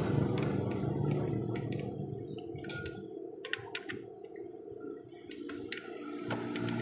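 Scattered light metallic clicks and clinks, a dozen or so spread irregularly, over a faint low hum: hand tools being handled to unbolt the starter motor cover.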